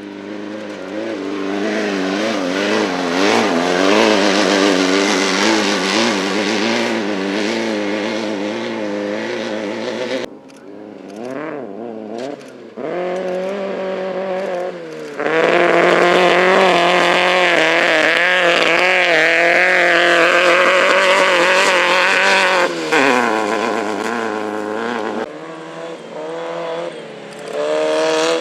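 Class 11 stock Volkswagen Beetle off-road race cars' air-cooled engines running hard at high revs, the pitch wobbling up and down, with sudden breaks where one pass cuts to the next.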